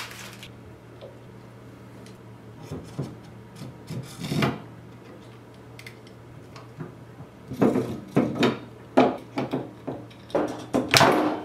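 Knocks, clicks and rubbing of small parts being handled on a wooden desk while a stepper motor is screwed into an aluminium 3D-printer gantry plate: scattered at first, then a dense run of louder knocks in the last few seconds.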